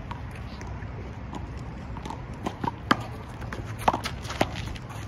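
Handball rally: a string of sharp, irregular smacks of a rubber handball being slapped by hand and rebounding off the concrete wall and court, the loudest about three and four seconds in, with sneaker footsteps and scuffs on the concrete.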